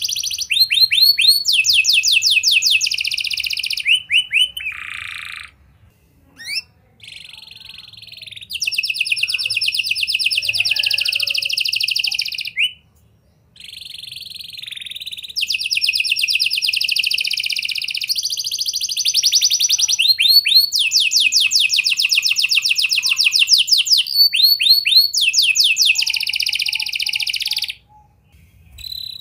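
Domestic canary singing: long, very fast trills in phrases of several seconds, broken by a few quick rising slurs and short pauses.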